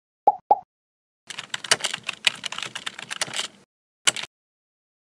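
Computer keyboard typing sound effect: two short pops, then about two seconds of rapid key clicks, then one sharp click about four seconds in.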